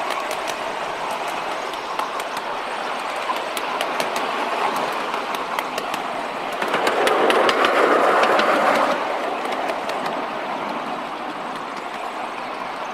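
Miniature 7¼-inch gauge steam locomotive and riding car running along the track, heard from on board: a steady running noise with irregular sharp clicks of wheels over the rail, getting louder for about two seconds around the middle.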